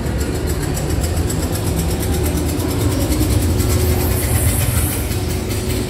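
Steady low engine-like rumble coming from overhead, with a faint fast rattle above it.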